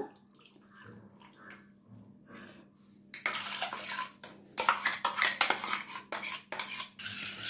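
Watery blended green purée pouring out of a mixer-grinder jar into a stainless steel pot, starting about three seconds in, with the jar clinking and knocking against the pot's rim. A few faint clicks of the jar being handled come before.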